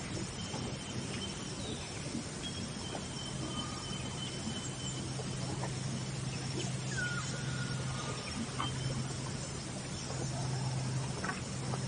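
Outdoor nature ambience: a steady low hum under a noisy background, with a few faint, short whistled bird calls, one falling slightly in pitch about seven seconds in, and scattered faint ticks.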